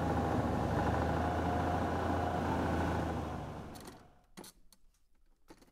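Propeller aircraft engine running steadily, with a low drone and a higher whine, fading away about four seconds in; after that, only a couple of faint knocks.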